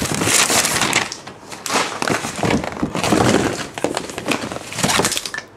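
Paper shopping bag rustling and crinkling as it is handled and unpacked, in several crackling bursts.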